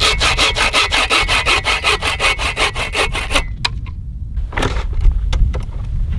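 Hand saw cutting a dead wooden log in quick, even back-and-forth strokes, about six a second, stopping about three and a half seconds in. A few light knocks and clicks follow.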